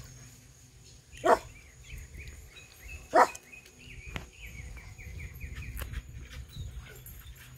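A dog barking twice, about two seconds apart.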